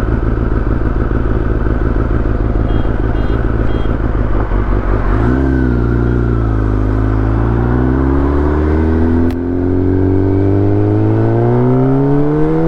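Kawasaki Ninja ZX-10R's inline-four engine running at low revs, then pulling away about five seconds in, its pitch climbing steadily as the bike accelerates, with a brief dip in level about nine seconds in.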